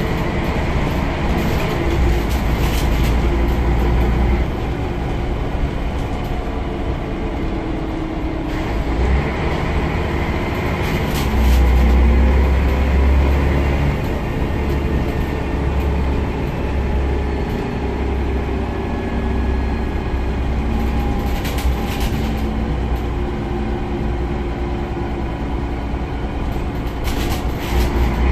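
Interior sound of a 2005 Scania CN94UB Omnicity single-deck bus on the move: the diesel engine's low drone rises and eases off several times as the bus pulls along, loudest about twelve seconds in. Occasional short knocks and rattles from the body and fittings.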